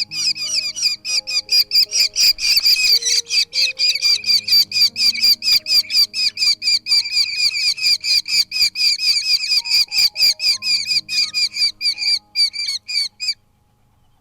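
Falcon chicks giving rapid, harsh begging calls, about five a second, that stop abruptly near the end: the chicks clamouring to be fed. Soft background music with slow low notes plays underneath.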